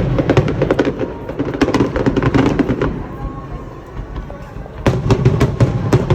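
Fireworks going off in rapid volleys of sharp cracks and bangs. They thin out about three seconds in, then come thick again about five seconds in.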